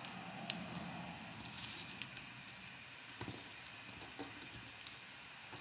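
Origami paper being folded and creased by hand: faint rustling and crinkling with scattered small ticks.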